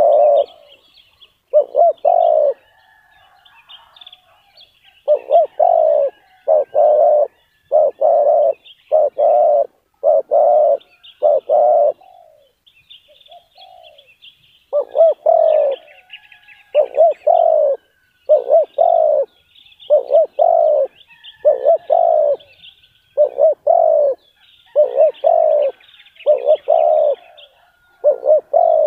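Spotted doves cooing: deep repeated coos in runs of two or three notes, pausing briefly twice. Small birds chirp faintly and high behind them.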